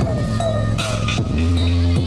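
Loud electronic dance music played through a large PA sound system under sound check, dominated by heavy, long-held bass notes from the subwoofers, with short falling synth tones above.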